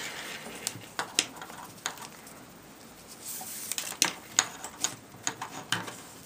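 Paracord and a plastic buckle handled while tying Solomon bar stitches: scattered light clicks and short rustles of cord being pulled through.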